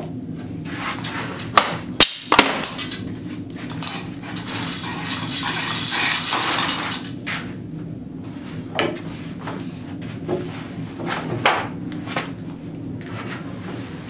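Knocks and clatter of a large painted cabinet carcass being handled and shifted on sawhorses, with a few seconds of rustling, scraping noise in the middle and a steady low hum underneath.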